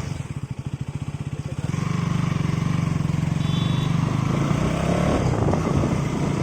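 KTM Duke 200's single-cylinder engine idling with a quick, even pulse just after starting, then rising to a louder, steadier note about two seconds in, held to the end.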